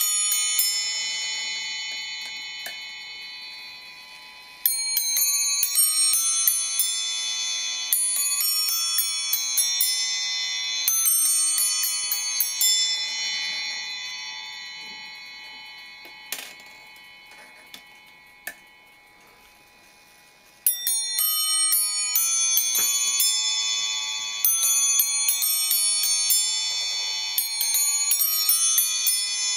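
Triple fusee bracket clock movement chiming: its hammers strike a nest of bells in quick runs of notes, one run starting about five seconds in and ringing away to a slow fade, with a couple of sharp mechanism clicks in the lull, then another run starting about twenty seconds in. The movement is freshly overhauled and running on test.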